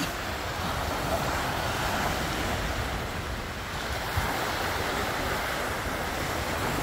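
Steady rushing noise of wind and sea surf, even throughout with no distinct events.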